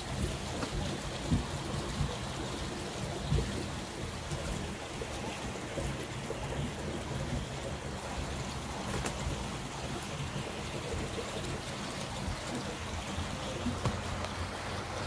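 Light rain falling: a steady hiss with scattered faint drop ticks and a low rumble underneath.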